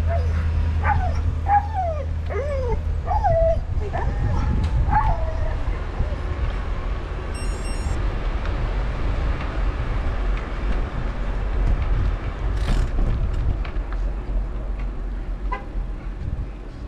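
A dog whining and yipping in a run of short cries that slide up and down in pitch, over about the first five seconds, then stopping. Under it runs the steady low rumble of the moving vehicle.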